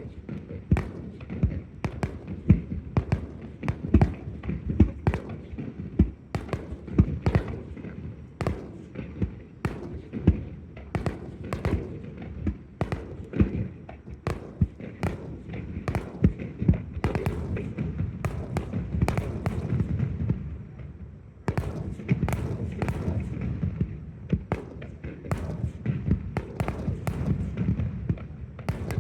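Aerial fireworks going off in quick, irregular succession: sharp bangs and crackling reports, often two or more a second, over a continuous low rumble, with a short lull a little past two-thirds of the way through.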